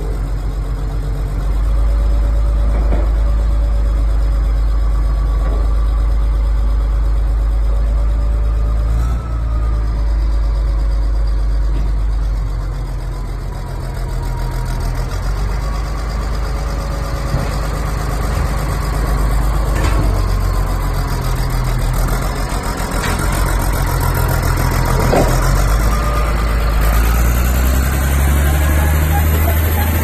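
Caterpillar D7R bulldozer's diesel engine idling steadily, a low rumble.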